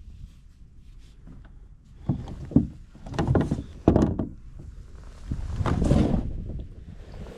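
Kayak paddle strokes: a series of swishing splashes, roughly one a second, beginning about two seconds in.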